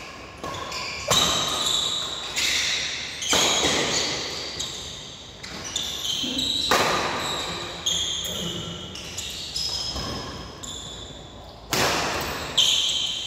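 Badminton rackets striking the shuttlecock in a fast doubles rally, about one sharp hit a second, each one echoing through a large hall.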